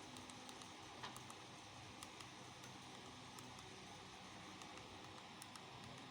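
Near silence: a faint steady hiss with a few small scattered clicks, one a little stronger about a second in.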